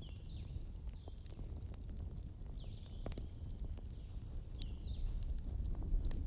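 Wood fire crackling with scattered sharp pops over a low steady rumble. Short high chirping calls that fall in pitch come and go through it, one held a little longer near the middle.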